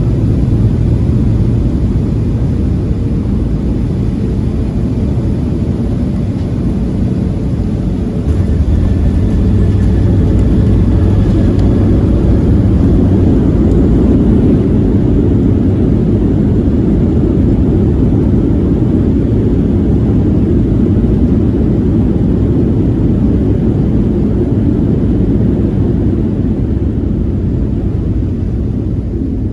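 Boeing 737-700 cabin noise: a steady rumble of the CFM56 jet engines and airflow heard from a passenger seat, stepping up louder about eight seconds in and easing off near the end.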